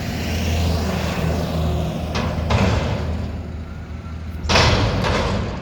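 Mack McNeilus front-loader garbage truck's diesel engine running steadily, with a short knock about two seconds in. A loud metal bang comes about four and a half seconds in as the lifted container is slammed against the stops to shake out the trash.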